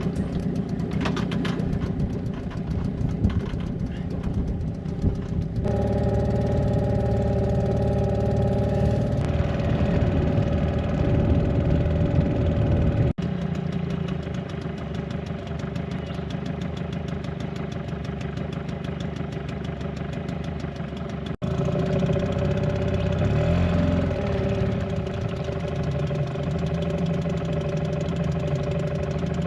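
A small boat's outboard motor running steadily under way. Its tone and level change abruptly a few times.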